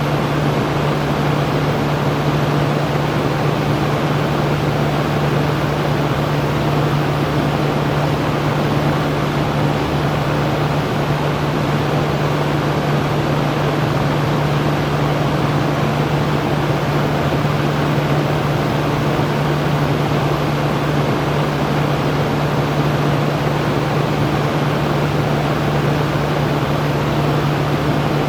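Electric fan running steadily: an even airy whoosh over a constant low motor hum, unchanging throughout.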